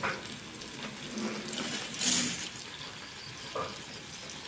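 Pot of hot water hissing steadily on a gas stove as dry spaghetti is lowered into it, with a brief louder rush about two seconds in.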